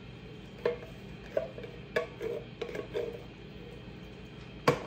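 A wooden spoon stirring tomato sauce in a skillet while the last of a tin can is shaken out over it: about six sharp knocks, each with a brief ring, the loudest near the end, over a steady low hum.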